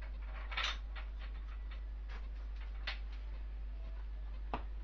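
Small metal motorcycle fork parts clicking and clinking as they are handled and fitted by hand, with sharper knocks about half a second in, near three seconds and near the end, over a steady low hum.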